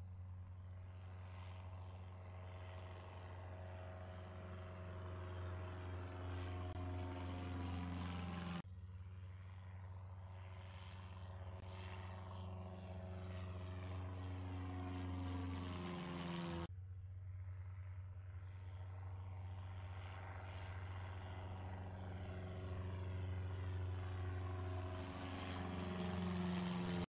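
Single-engine propeller training plane flying overhead, its engine droning steadily and slowly growing louder and higher in pitch. The drone breaks off abruptly twice and starts up again.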